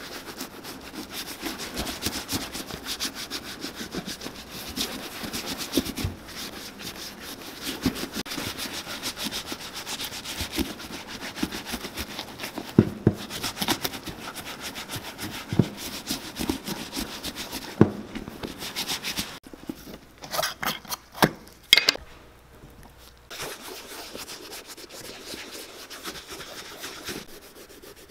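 Gloved fingers, and near the end a cloth, rubbing conditioner and shoe cream into the leather uppers of a cowboy boot in quick, continuous strokes. About two-thirds through there are a few sharper knocks, and after them the rubbing is quieter.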